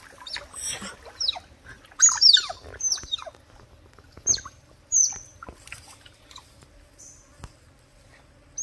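Otters giving high-pitched chirps and squeaks that fall sharply in pitch, a string of them in the first five seconds, then only a faint one or two.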